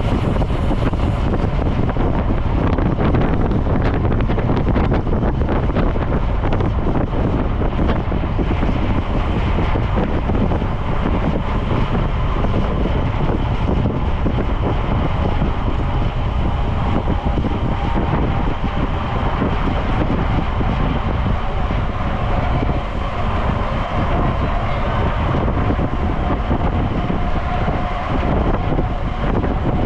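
Steady wind rushing and buffeting over the microphone of a bicycle-mounted or rider-worn camera while riding a road bike at speed.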